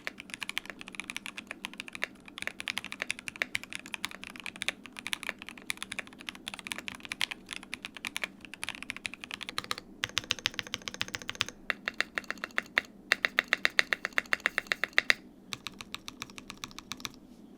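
Typing on a Qwertykeys QK60 gasket-mounted 60% custom mechanical keyboard with SP Star Marble Soda Melon switches, an aluminum plate and plate foam only, which sounds a bit more dampened but livelier. Steady fast typing, with a run of rapid, evenly repeated keystrokes near the end and a short pause after it.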